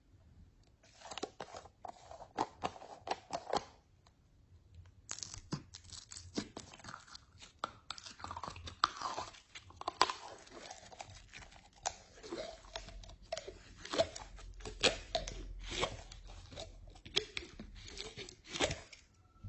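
Slime being squished and mixed by hand: an irregular run of sticky crackles and sharp popping snaps. It stops for about a second around four seconds in, then goes on thicker.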